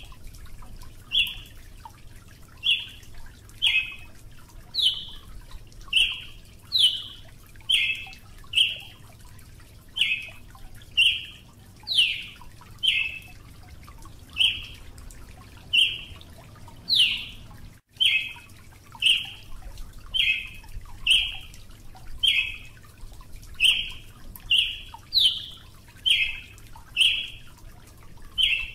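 Brazilian tanager giving short, sharp call notes over and over, about one a second, with a few longer, higher sweeping notes mixed in.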